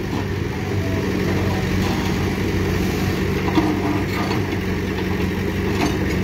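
JCB backhoe loader's diesel engine running steadily under load as the backhoe bucket digs into hard, compacted ground.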